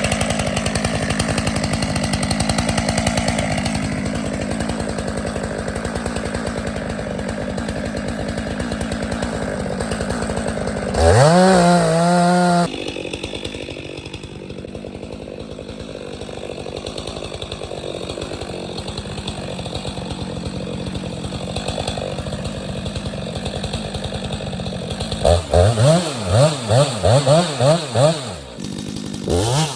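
Two-stroke chainsaw running at a steady low speed. About eleven seconds in it is throttled up and held high for a second or so. Near the end the throttle is blipped several times in quick succession, the pitch swinging up and down.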